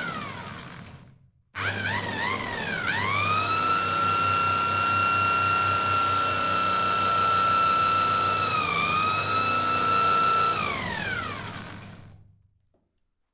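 Motor-driven motorcycle magneto flywheel on a CDI spark-test rig, giving a high whine. It winds down and stops in the first second, starts again about a second and a half in with a wavering rise, holds steady with a brief dip, then glides down as the flywheel spins to a stop about twelve seconds in.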